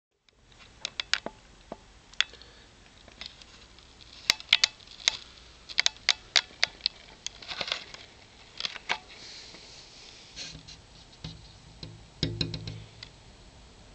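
Scattered sharp light clicks and ticks at irregular intervals, thickest in the middle, with a soft low thump about twelve seconds in.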